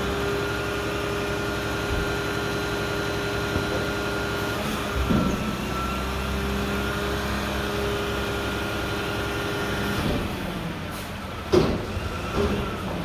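Mack front-loader garbage truck running, with a steady whine over the engine that stops about ten seconds in. Near the end comes a loud sharp knock, then a couple of smaller ones.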